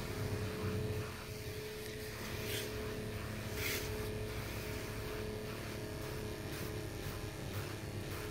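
Stain sprayer's pump motor running steadily with a constant hum, and a couple of short hisses from the spray wand.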